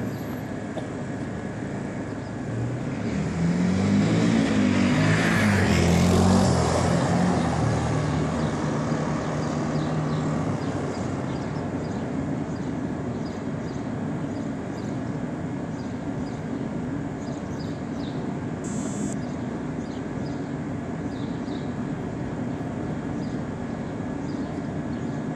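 A quad bike's engine approaches and drives past, loudest about four to seven seconds in and then fading, over a steady background noise.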